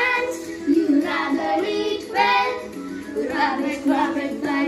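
Miko 2 robot playing a children's coronavirus hygiene song through its small speaker: a child-like voice singing a melody over backing music.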